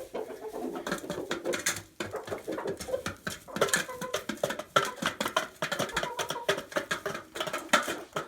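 Chickens pecking scratch grain off the coop floor: rapid, irregular taps, with soft, low clucking mixed in.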